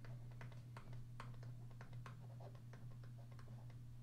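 Faint, irregular light ticks of a stylus on a tablet screen as letters are handwritten, several a second, over a steady low hum.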